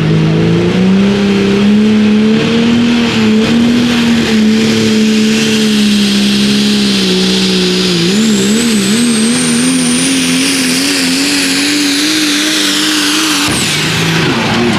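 Diesel pulling truck's engine running hard under load. Its pitch climbs early on and holds, then wavers from about the middle, while a high turbo whistle rises. Near the end the engine note cuts off suddenly and the whistle falls away: the turbocharger exploded on this run.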